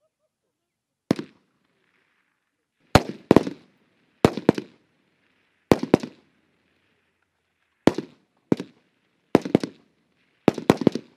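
Rifle fire from several soldiers on a firing line: about fifteen single shots at irregular intervals, often two or three in quick succession, each a sharp crack with a short echo off the range.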